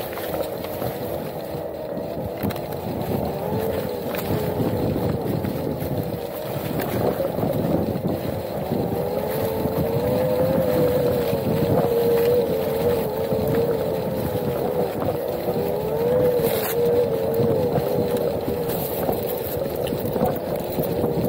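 Onewheel's electric hub motor whining while riding, its pitch wavering up and down with speed, over a steady rumble from the tyre on a rough dirt trail.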